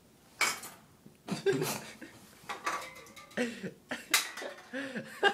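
Toilet paper being pulled and gathered up in a run of short crinkling, rustling bursts, mixed with short bursts of stifled laughter.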